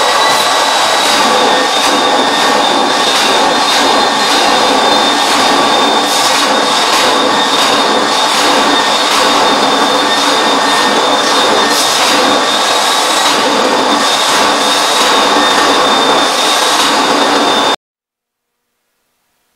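Powr-Flite portable carpet extractor running hard as its stair wand is drawn over carpet: a steady high vacuum-motor whine over a rushing hiss that surges in a regular rhythm. It cuts off abruptly near the end.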